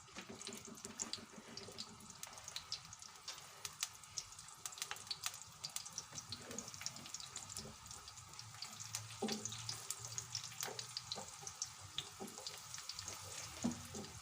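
Sliced garlic frying in hot olive oil in a pot, browning: a soft sizzle with many small crackles and pops.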